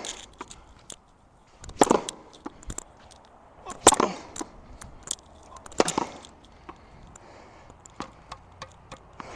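Tennis ball being hit with a racket against a wall, one sharp smack about every two seconds, four times, followed by small scattered clicks.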